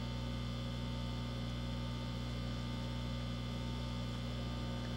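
Steady electrical hum made of several constant tones over a faint hiss, unchanging throughout.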